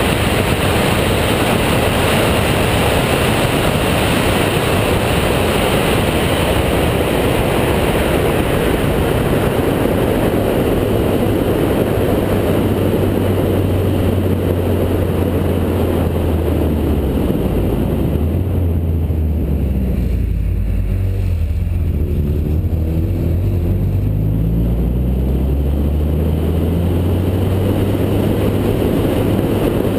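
Wind and road noise rushing over an outside camera microphone on a Chevy Cobalt at speed. Past the middle the rush dies down and the car's 2.2-litre four-cylinder engine comes through, its pitch gliding up and down for several seconds as the car slows and turns, before the rush builds again near the end.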